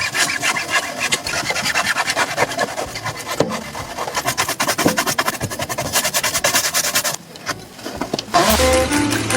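Rapid, dense scraping strokes of a tool rubbing against a shoe during repair work, stopping about seven seconds in. Music with string notes comes in near the end.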